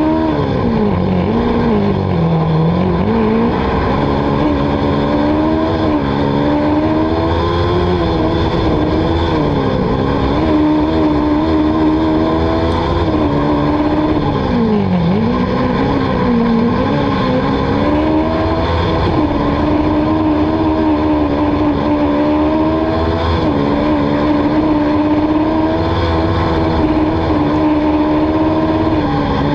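Autocross racing car's engine running hard at high revs, its pitch dropping and climbing back several times, most deeply about two seconds and fifteen seconds in.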